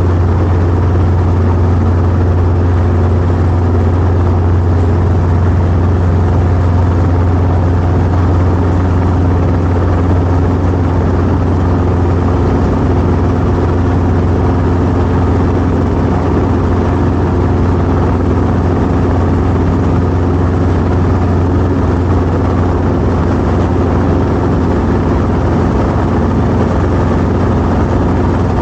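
Training helicopter's engine and rotor running steadily: a loud, constant low drone with no change in pitch.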